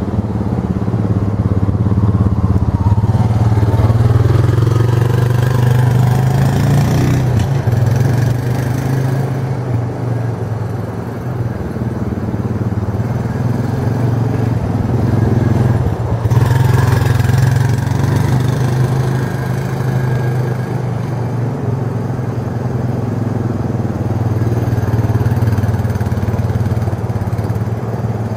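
Four-wheel ATV engine running at low speed, a steady low drone that swells and fades as the quad moves about, loudest about four seconds in and again about seventeen seconds in.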